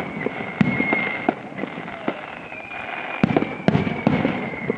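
Aerial fireworks display: shells bursting with sharp bangs at irregular intervals, with a quick cluster of bangs about three seconds in.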